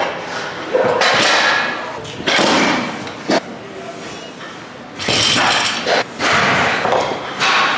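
Rubber bumper plates being slid off a barbell's metal sleeves and set down on the lifting platform: scraping and thuds in several bouts about a second long.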